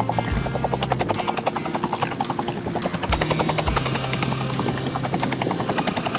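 Bell two-blade military helicopter flying past, its main rotor blades slapping in a rapid, steady beat.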